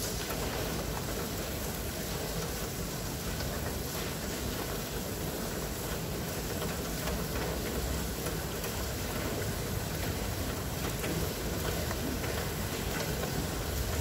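Steady low rumble and hiss of a running vehicle.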